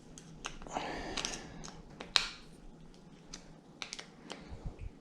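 Scattered light clicks and taps of tools and metal parts being handled at a bicycle stem's handlebar clamp, with a short rustle about a second in and the sharpest click just after two seconds.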